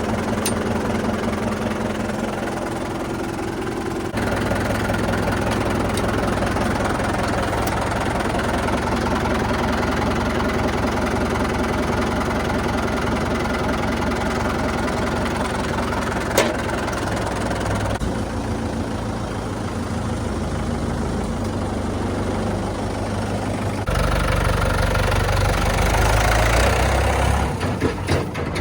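Heavy diesel machinery engine running steadily, its note and level shifting abruptly about four seconds in and again near the end, with one sharp click around the middle.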